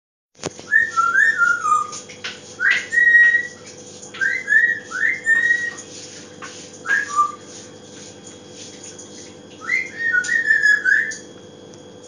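African grey parrot whistling short phrases of a few gliding notes each, in about five bursts separated by pauses, over a faint steady hum.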